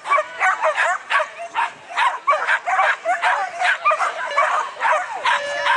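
Several flyball dogs barking and yipping in rapid, overlapping barks, the high-pitched barking of dogs worked up while held at the start line before a race.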